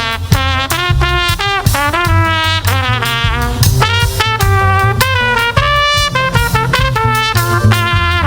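Live gospel band music: a lead brass melody of held and sliding notes over bass and drums.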